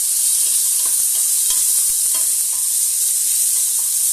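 Chopped garlic and onion sizzling steadily in hot cooking oil in a pan while being stirred, with faint clicks of the utensil against the pan, sautéing until they brown.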